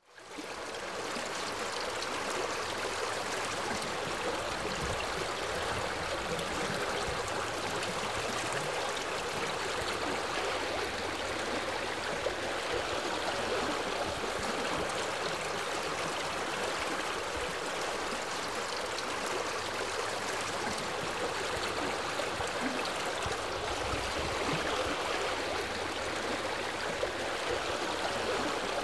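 Steady sound of running stream water, fading in at the very start and then flowing evenly with no change.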